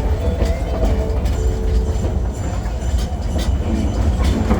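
Small passenger ride train rolling along its track, heard from aboard: a steady low rumble with irregular sharp clicks from the wheels on the rails.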